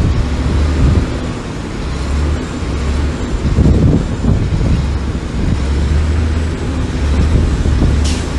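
Diesel engine of heavy earthmoving machinery running under load: a steady low rumble that swells and eases, with a short hiss near the end.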